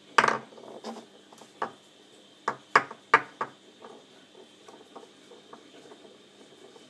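A light, hollow, round stone knocking against a wooden tabletop: a string of sharp knocks, about seven in the first three and a half seconds, the loudest right at the start and just after three seconds, then a few faint ticks.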